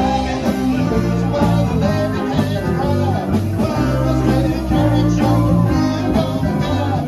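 Live rock band playing a rockabilly number: electric guitars, bass guitar and drums, loud and continuous.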